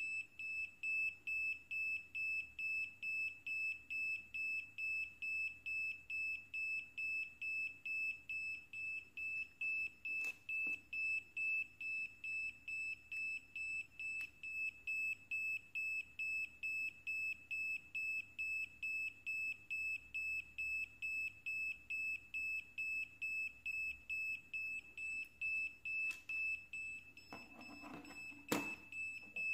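Small buzzer on an NE555/4017 IC test board beeping repeatedly, a high-pitched tone about twice a second. The steady repeated beeping shows that both ICs are working. A few light knocks of handling come near the end.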